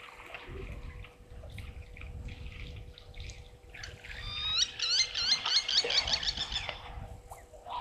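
A bird calling a fast run of about ten sharp, repeated high notes, starting about halfway through and lasting about two seconds, over faint low background noise.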